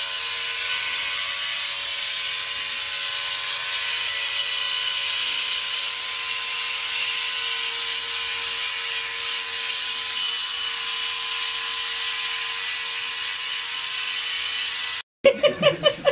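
Electric shaver buzzing steadily as it is run over a small monkey's face, one even pitch throughout. It cuts off suddenly near the end, and a chicken clucks and voices follow.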